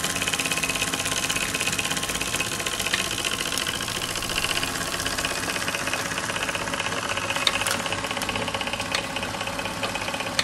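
MF Twin toy steam engine running steadily on live steam with a rapid, even beat, driving the belts and line shafts of a Jensen 100 toy workshop. A couple of light clicks sound over it near the end.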